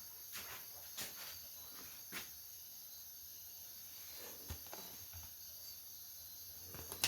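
A few soft taps and knocks from a Blu-ray box set being handled, over a faint steady high hiss.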